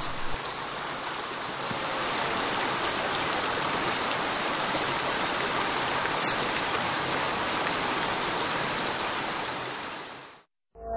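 Shallow mountain stream rushing over rocks: a steady, even rush of water that fades out near the end.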